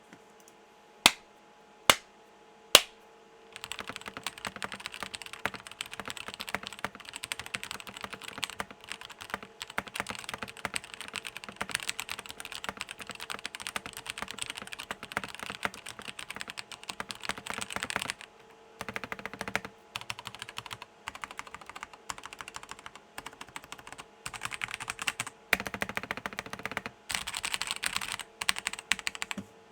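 ASUS M10TBL mechanical gaming keyboard with Kailh Red linear switches, modded with case foam, tape layers and lubed Costar stabilizers, being typed on with a deep thock. Three loud single key presses about a second apart open, then fast continuous typing that breaks off in a few short pauses.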